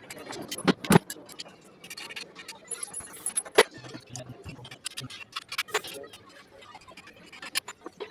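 Metal tools and parts clinking and knocking irregularly, with the sharpest knocks about a second in and halfway through.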